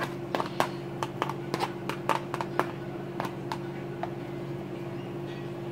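Chopped onions frying in a nonstick pan, stirred with a spatula: irregular light ticks and taps against the pan, thinning out about halfway through, over a steady low hum.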